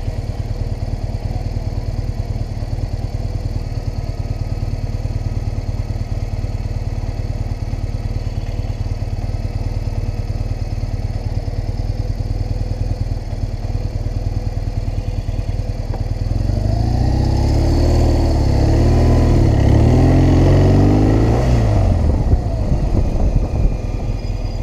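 Motorcycle engine idling steadily, then, about two thirds of the way in, accelerating away with its pitch climbing and dropping back several times through the gears before settling to a steady run.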